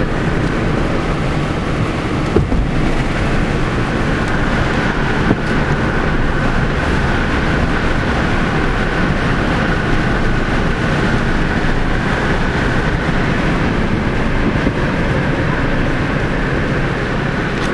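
Steady engine, tyre and wind noise inside a car's cabin as it drives at a constant speed, with a faint steady whine and a couple of brief knocks early on.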